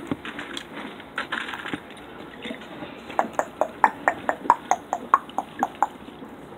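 A quick run of about a dozen light clicks, some four or five a second, starting about three seconds in.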